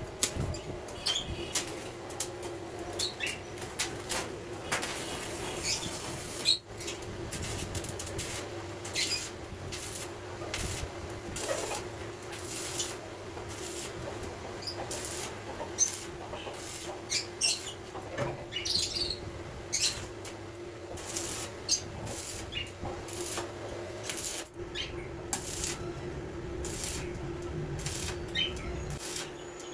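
Arc welder crackling in irregular runs as steel cage-frame joints are welded. Small caged birds chirp now and then, over a steady hum.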